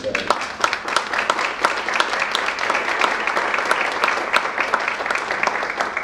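Audience applauding, a dense patter of many hands clapping that dies away near the end.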